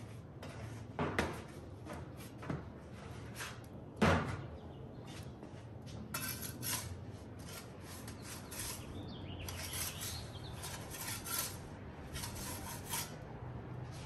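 Handling noises: a couple of sharp knocks as a bowl is covered and set down, the loudest about four seconds in. Then comes a run of short scrapes and rattles as a metal turning peel works a pizza in the wood-fired oven.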